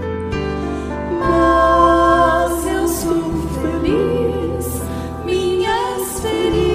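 Slow gospel ballad: sustained keyboard chords over a steady bass, with a female voice singing a wavering melody.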